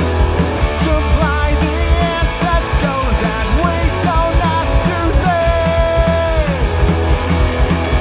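Punk rock band playing live: distorted electric guitars, bass and drums at a fast, steady beat. A lead melody line bends between notes, then holds one long note past the middle before sliding down.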